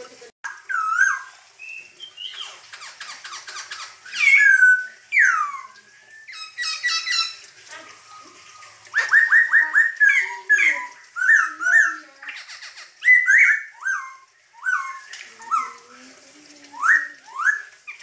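Black-throated laughingthrush (poksay Hongkong) singing loudly: a varied string of whistled, slurred notes that rise and fall, mixed with harsh rattling chatter and quick runs of repeated notes.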